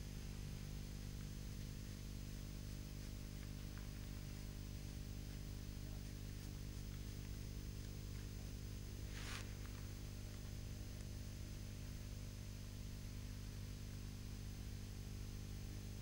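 Steady low electrical mains hum with a faint hiss under it. A brief soft swish comes about nine seconds in.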